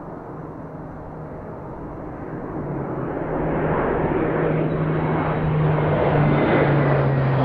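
Low-flying military jet approaching. Its rushing engine noise builds steadily louder from about a third of the way in, with a low steady hum underneath.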